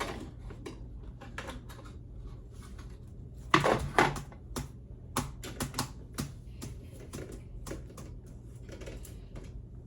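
Irregular clicks and knocks from hands working with tools and alarm hardware, with a louder cluster about three and a half seconds in, over a steady low hum.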